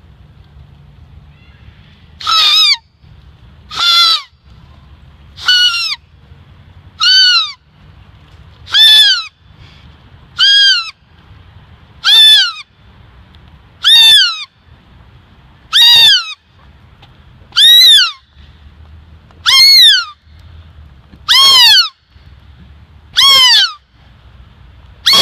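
A thin strip of birch bark blown as a reed by a person, making a bird-like call: about fourteen shrill calls, each a short note that rises briefly and then falls in pitch, repeated about every second and a half to two seconds.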